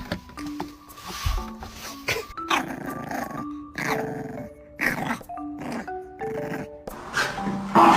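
A dog's short vocal sounds, several times, over background music with a simple melody of held notes.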